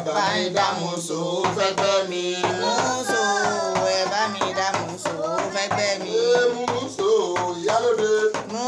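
Music: a voice singing a flowing melody over quick, steady hand-drum strokes.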